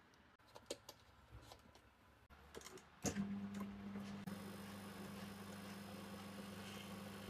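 A few faint clicks and taps, then about three seconds in a microwave oven switches on and runs with a steady low mains hum. The oven runs but does not heat, a fault later traced to its magnetron.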